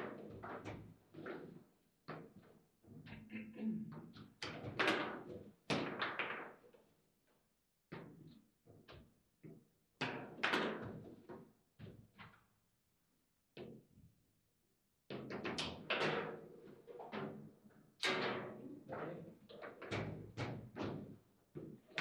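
Table football in play: the ball struck by the rod-mounted players and knocking around the table, a fast run of sharp clacks and thuds. There is a lull about two-thirds of the way through, then a quick flurry of hits near the end.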